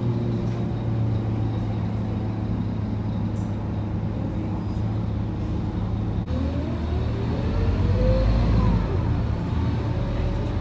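Scania K230UB city bus's diesel engine heard from inside the passenger cabin, running steadily with a low hum as the bus drives. About six seconds in, a whine rises in pitch and the sound grows a little louder.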